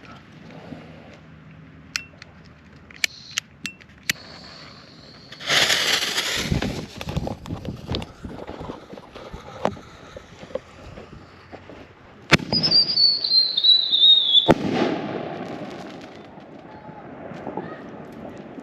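A 6-inch canister firework shell fired from a fiberglass mortar tube: a few sharp crackles from the fuse, then the lift charge fires with a loud whoosh about five seconds in. About twelve seconds in the shell breaks with a sharp bang, a falling whistle follows for two seconds, and a second bang ends it with a fading rumble.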